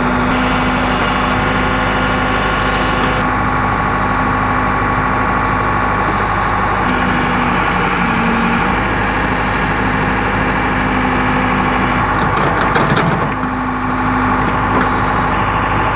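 An engine idling steadily, with a brief clatter about thirteen seconds in.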